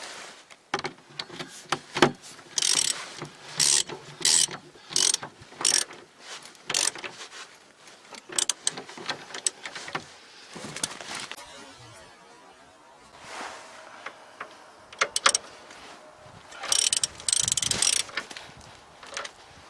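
Ratchet wrench clicking in repeated short runs of strokes with pauses between, as the shock mounting bolts are tightened.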